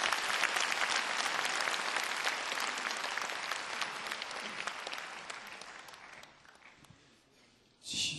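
Audience applauding, a dense patter of clapping that gradually dies away over about six seconds. Just before the end a held, pitched musical sound begins as the song starts.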